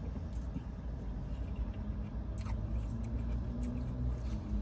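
Chewing juicy watermelon, with a few short wet mouth clicks, the clearest about halfway through, over a steady low hum inside a car.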